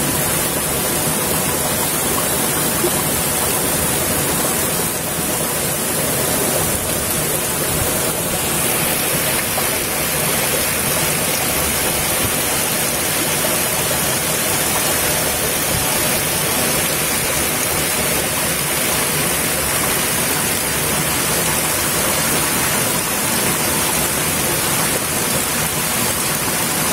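Steady rush of a thin waterfall spilling down a steep rock face and splashing on the rocks below.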